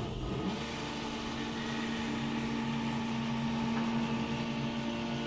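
Several stepper motors driving a belt-driven, 3D-printed five-axis robot arm through a coordinated move: a steady motor whine with several held tones, the strongest coming in about half a second in.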